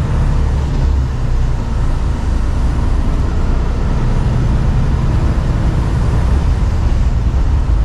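Mercedes-Benz Actros truck cruising at a steady speed, heard from inside the cab: a constant low diesel engine drone with tyre and road noise.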